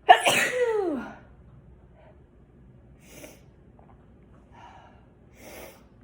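A person sneezes once, hard and wet, the voiced 'choo' falling in pitch over a spraying hiss, then takes three short, quieter breaths.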